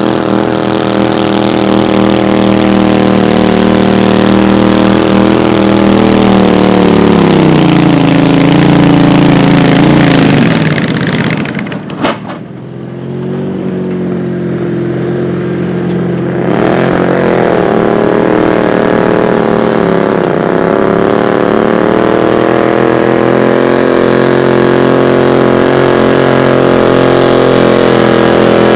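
Loud garden-tractor pulling engine running hard. Its pitch sinks over several seconds and drops away with a sharp click about twelve seconds in. A few seconds later an engine revs back up and runs steadily.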